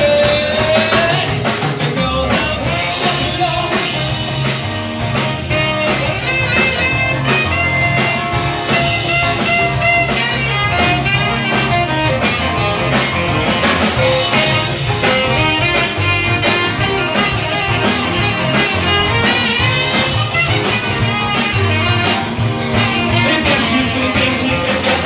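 A live band playing an instrumental passage with a steady beat: keyboard, electric guitar and drums.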